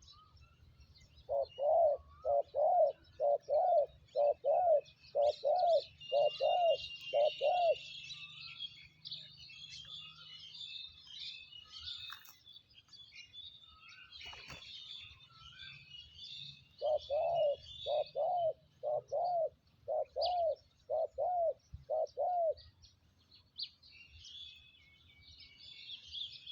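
Dove cooing: two runs of about ten short, even coos, a pause of several seconds between them. Small birds chirp faintly and high in the background.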